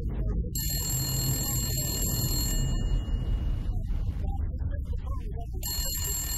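Landline telephone bell ringing in two rings of about two seconds each, the first starting about half a second in and the second near the end, over a steady low background.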